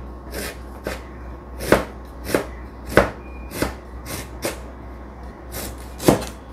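Kitchen knife slicing fresh ginger on a cutting board: about ten sharp chops at an uneven pace, with a short pause near the end.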